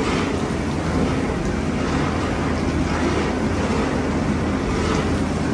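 Plastic recycling factory machinery running steadily: a continuous low hum under a loud, even rush of noise, with a few soft swells.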